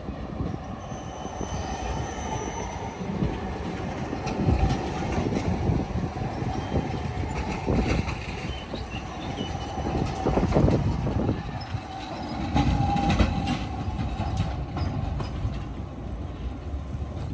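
Low-floor articulated tram rolling slowly round a tight curve, its wheels squealing against the rails in a steady high tone over a low rumble, with knocks and clicks as the wheels pass over rail joints and switches.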